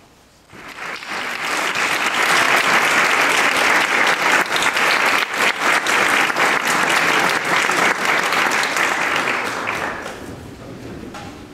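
Audience applauding: the clapping starts about half a second in, builds quickly to a steady level, and dies away from about ten seconds in.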